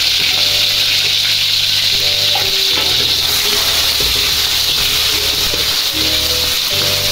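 Sliced garlic, shallots and tomato sizzling in hot oil in a wok, a steady loud hiss, stirred with a spatula.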